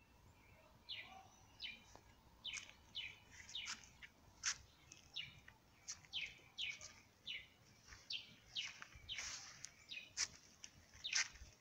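Birds chirping: a steady run of short, sharp calls sweeping downward in pitch, roughly two a second.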